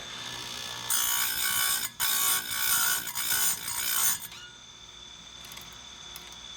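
Electric saw-chain grinder running with a steady high whine. The wheel grinds a chain tooth loudly from about one second in to about four seconds in, with a brief break near two seconds.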